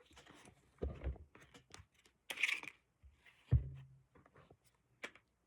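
Glock pistols and a magazine being handled: a few separate sharp clicks and knocks, the loudest about three and a half seconds in, with a short rustle near the middle.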